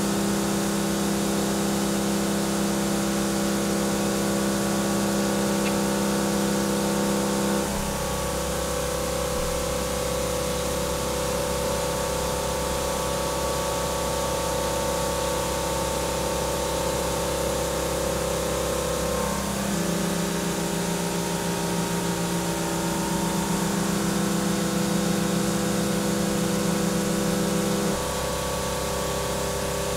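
Doosan DNM 5700L vertical machining centre roughing 6Al-4V titanium with a half-inch end mill under flood coolant: a steady cutting hum with the hiss of coolant spray. The pitch of the cutting tones changes abruptly three times, about 8 seconds in, around 20 seconds in and near the end, as the cut changes.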